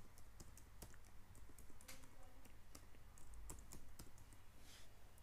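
Faint, irregular keystrokes on a computer keyboard as a password and a captcha code are typed in, over a steady low hum.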